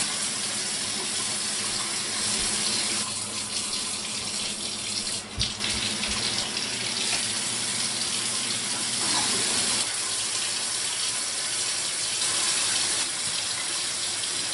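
Tap water running steadily into a sink while eggs are washed, with a brief knock about five seconds in.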